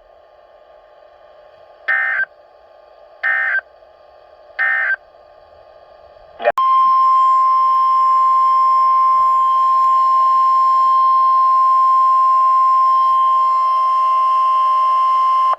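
NOAA Weather Radio emergency alert opening: three short bursts of SAME header data screech about a second and a half apart, then, from about six and a half seconds in, the steady single-pitch 1050 Hz warning alarm tone, over faint radio hiss. The tone signals that a weather warning is about to be read.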